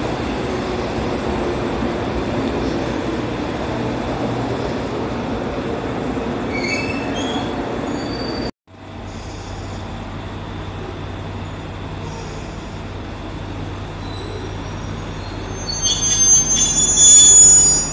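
Electric train pulling away on the next track, with a steady rumble and a few brief high squeals. After a cut, a train approaches the platform and grows louder, with high-pitched wheel squeal peaking near the end.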